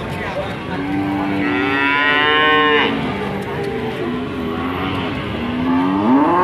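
Cattle mooing, several calls overlapping. A long call comes about a second in with a higher, rising call over it, and another call rises near the end.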